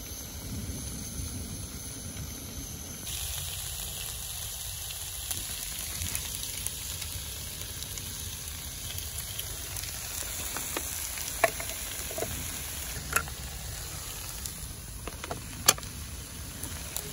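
Fried potatoes with onion and salo sizzling in a frying pan over a gas burner, with eggs cracked in and a spatula stirring. The sizzle grows brighter about three seconds in, and three sharp taps stand out in the second half.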